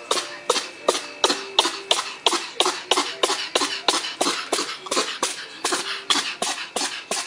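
Sphynx cat sneezing over and over in a fast, even run, about three sharp sneezes a second.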